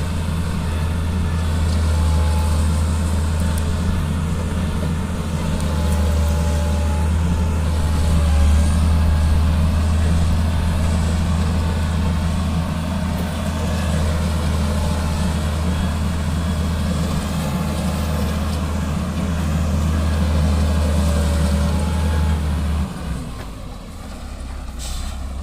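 Heavy diesel engine of a motor grader running steadily with a deep, even hum. Near the end the engine note drops and quietens.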